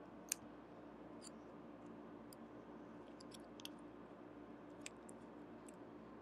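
Faint clicks and crinkles of paper and clear tape being handled, small tape loops rolled between the fingers and pressed onto a paper cutout, over a low steady hum. The sharpest click comes about a third of a second in, with a few more scattered after.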